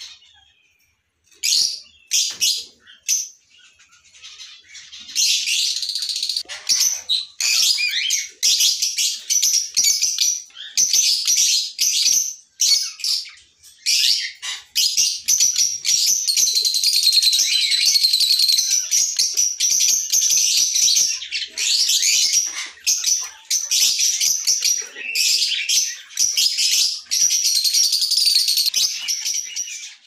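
Caged lovebirds chattering: rapid, shrill, high-pitched chirps, a few separate calls at first, then a near-continuous din of many birds from about five seconds in.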